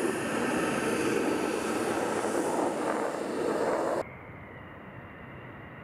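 Tu-22M3 bomber's NK-25 jet engines sounding loudly as the aircraft flies past overhead. About four seconds in, the sound drops suddenly to a quieter, more distant jet noise with a faint steady high whine, as the bomber comes in to land with its gear down.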